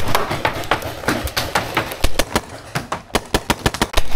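Paintball markers firing rapid, unevenly spaced strings of sharp pops, about five a second.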